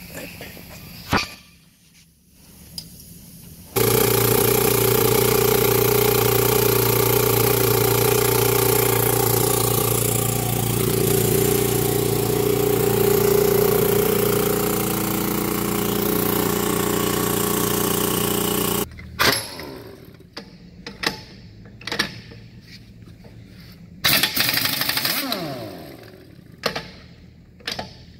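Air-powered truck jack's air motor running steadily and loudly for about fifteen seconds while lifting the semi truck's front end, cutting off suddenly. It is followed by a few short bursts from an air impact wrench working the steer wheel's lug nuts.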